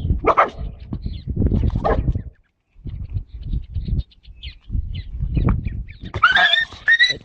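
A dog yelping and barking in short, sharp cries over irregular low thumping and scuffling, with a higher, gliding cry near the end.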